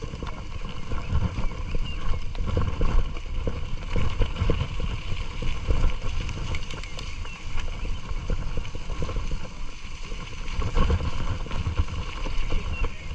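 Mountain bike ridden over a wet, bumpy dirt road: a constant low rumble from the tyres and frame, with many small irregular knocks and rattles as it jolts over the ruts.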